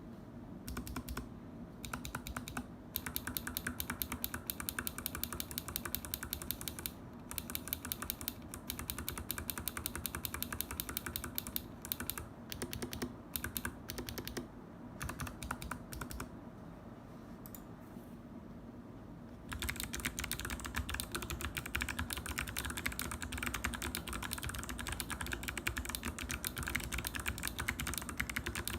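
Typing on an NJ68 mechanical keyboard with Kailh Box Jade clicky switches, lubed with Krytox 205g0, in a fully foamed case. The keystrokes come as rapid, crisp clicks with a few short pauses. It goes quieter and sparser for a few seconds past the middle, then turns to faster, steady typing over the last third.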